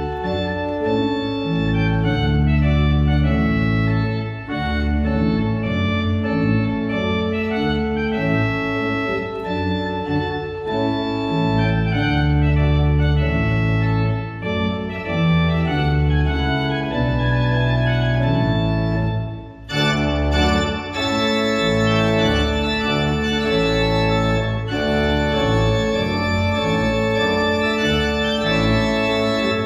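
Church organ playing a festive piece, sustained chords over a pedal bass line. About twenty seconds in it pauses briefly, then resumes with a brighter, fuller registration.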